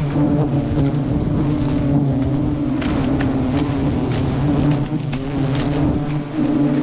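Dense, steady buzzing of a giant honey bee (Apis dorsata) colony in flight around its exposed comb, close to the microphone. A few sharp clicks cut through it about three seconds in and again about five and a half seconds in.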